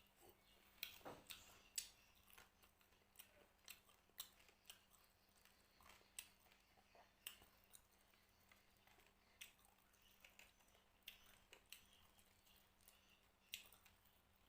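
Faint, irregular clicks and small crunches of someone eating fried carp with rice, chewing and handling the food.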